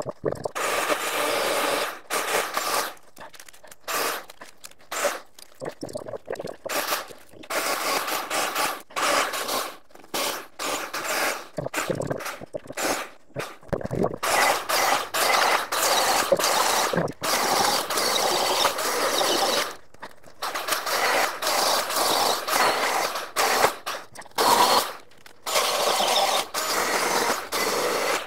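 Milwaukee M18 cordless chainsaw run in short bursts as it cuts wood, starting and stopping abruptly many times.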